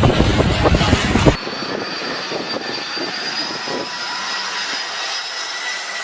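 Jet airliner engines at close range: a loud, deep rumble cuts off abruptly about a second in, giving way to a steadier engine whine with several high held tones.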